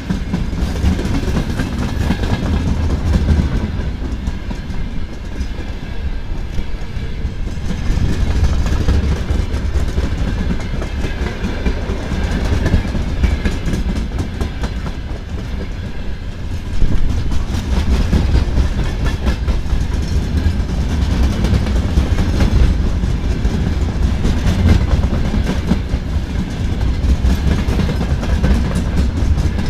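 Freight train of open gondola wagons rolling past at speed: a steady rumble of wheels on the rails with clickety-clack over the rail joints, swelling and easing as the wagons go by.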